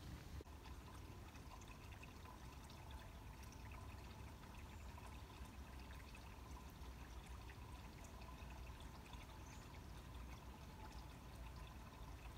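Near silence: faint, steady background hiss with a low rumble and no distinct sound events.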